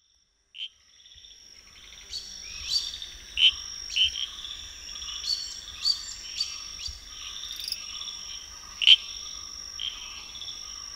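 Night-time forest chorus fading in over the first two seconds: a steady, high insect trill with frequent short chirping calls from frogs and insects over it.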